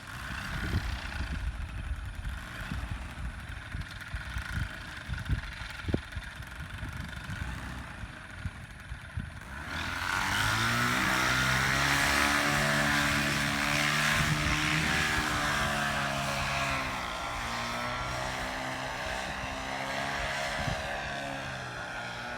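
Wind buffeting the microphone in gusts, then about ten seconds in a paramotor's engine and propeller start up suddenly and run steadily at a high, even pitch that eases slightly later on.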